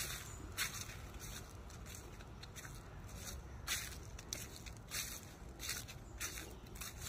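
Footsteps crunching through dry fallen leaves on a grass verge, a regular step about every half to two-thirds of a second, over a low steady rumble.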